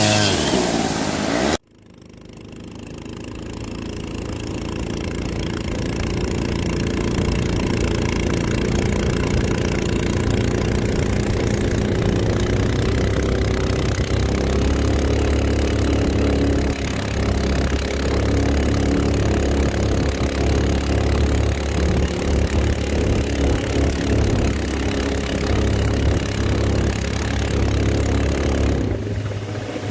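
An engine running steadily with a deep low rumble, fading in just after an abrupt cut about a second and a half in.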